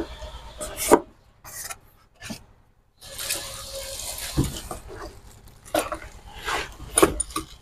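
Cardboard box flaps and plastic bags rustling and crinkling as a boxed power tool is unpacked by hand, with a few light knocks. About a second in there is a near-silent pause of roughly two seconds before the rustling picks up again.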